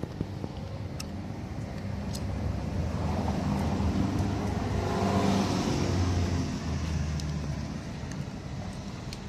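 A car driving past, its engine and tyre noise swelling to a peak about halfway through and then fading away.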